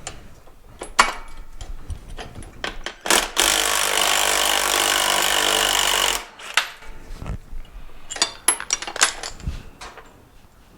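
A cordless electric ratchet runs steadily for about three seconds, backing out a bolt. Before and after it come light metallic clicks and clanks of tools and parts being handled.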